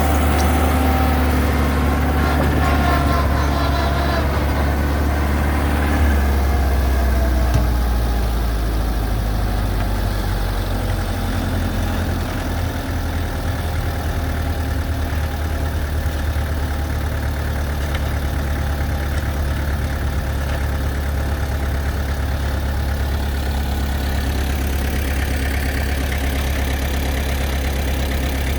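Heavy diesel engine of an excavator running steadily at a low, even note, with a brief change in engine note about six to eight seconds in before settling back to steady running.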